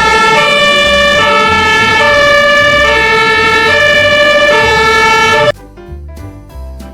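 Toy fire rescue truck's electronic two-tone hi-lo siren, loud and switching between a higher and a lower tone about every half second. It cuts off suddenly about five and a half seconds in.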